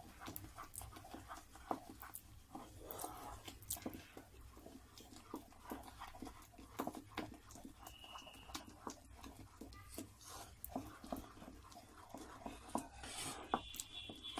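Spatula stirring caramelised sugar that is foaming up with freshly added baking soda in a metal saucepan: faint, irregular scrapes and clicks against the pan.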